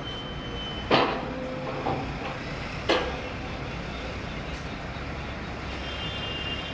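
Mini goods truck's engine idling, a steady low rumble, with two sharp knocks about a second and three seconds in.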